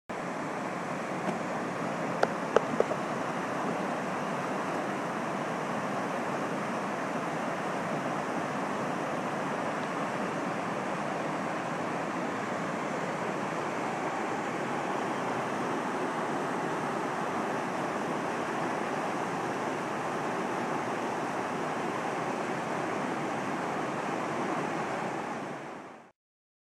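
Creek water rushing over rapids: a steady, even rush, with a few sharp clicks about two seconds in, fading out near the end.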